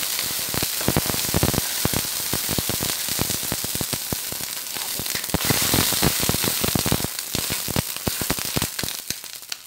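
Pan on the stove with fried ginger and freshly added water sizzling and spattering hard, dense crackling pops over a steady hiss, dying down in the last second.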